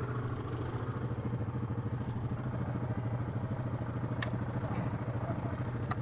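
ATV engine idling steadily with a fast, even chug, and two short sharp clicks about four seconds in and near the end.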